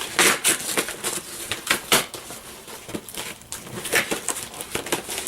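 Cardboard box and packaging handled and rubbed as a tripod is pulled out of it: irregular crackling, scraping and small knocks.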